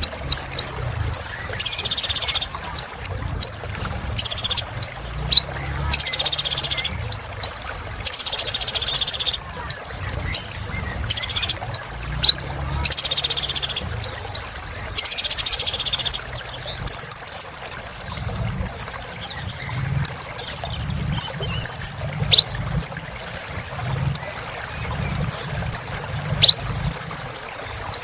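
Sunbird (kolibri ninja) singing a long, busy song of quick, sharp, high-pitched chirps that sweep downward, broken by hissy bursts and fast trilled runs of notes.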